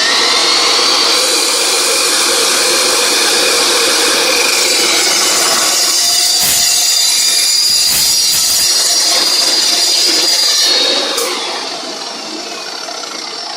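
Metal-cutting chop saw running and cutting through metal stock, a loud steady whine and grinding with a few sharp clicks partway through. About eleven seconds in the cut finishes and the sound drops, the pitch falling as the blade winds down.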